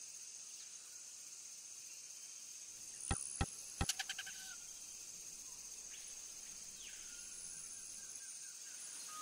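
Rainforest ambience: a steady high insect drone. A quick cluster of sharp clicks comes about three seconds in, and a short falling whistle near seven seconds.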